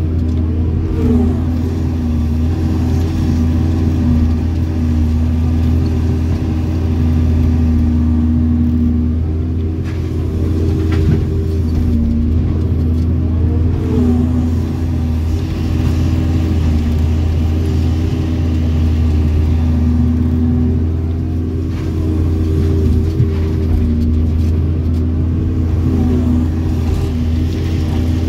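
Doosan hydraulic excavator's diesel engine and hydraulics running under working load, heard from inside the cab: a steady low drone with a humming tone above it that swells and eases every few seconds as the boom swings and the bucket digs.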